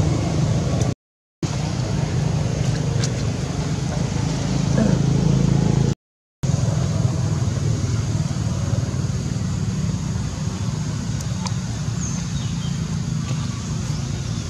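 Steady low rumble and hiss of outdoor background noise, with a couple of faint clicks; the sound drops out completely twice, briefly, about one second in and about six seconds in.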